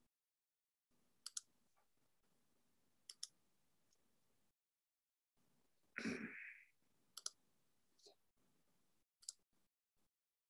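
Computer mouse clicking: quick clicks, mostly in close pairs, every second or two over near silence, with one brief louder noise about six seconds in.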